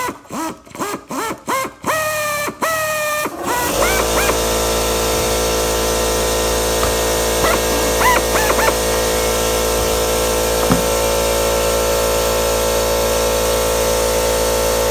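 Pneumatic drill run in short trigger pulses, each a rising whine, drilling out a rivet head, the last few pulses longer. From about four seconds in, a steady air-compressor drone takes over, with a few more brief drill pulses near the middle.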